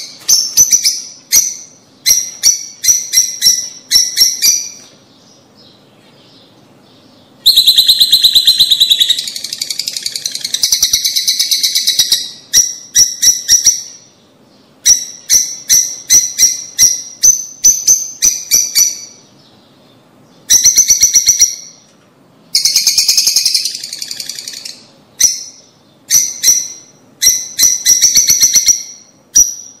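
Lovebirds calling in rapid runs of high-pitched chirps, bursts of several quick calls with brief lulls between them.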